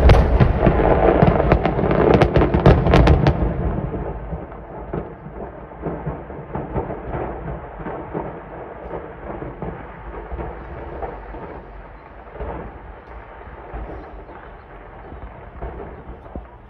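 A large cache of commercial-grade fireworks exploding: a dense volley of loud bangs and crackles for the first three or four seconds, then a lower rumble with scattered pops that slowly dies away.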